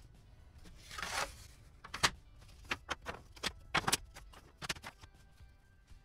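Handling noises: a short scrape about a second in, then a string of sharp clicks and taps, the loudest about two seconds in.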